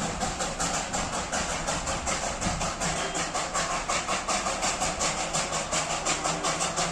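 Darjeeling Himalayan Railway B-class steam locomotive No. 804 working, its exhaust chuffing in a quick, even beat of about four to five chuffs a second.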